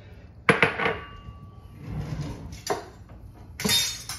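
A ceramic bowl set down with a sharp clack that rings briefly, followed by light kitchen handling noise and, near the end, a drawer being opened with utensils rattling.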